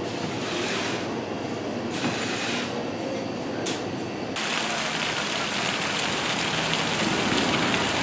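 Indoor market background with distant voices, cut about four seconds in to a steady rushing hiss of fountain jets spraying outdoors.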